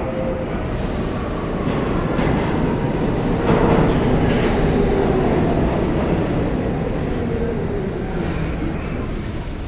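New York subway train rumbling through the station, swelling about three and a half seconds in and easing off slowly toward the end.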